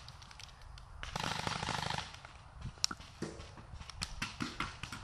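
Paintball markers firing: a fast burst of shots for about a second, then a sharp single shot and scattered shots.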